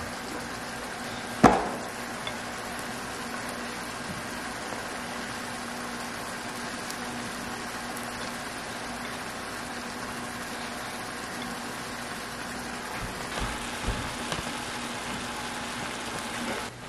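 A pan of mushrooms in cream sizzling steadily on the hob, with a faint steady hum under it. One sharp knock sounds about a second and a half in, and a few lighter knocks come near the end.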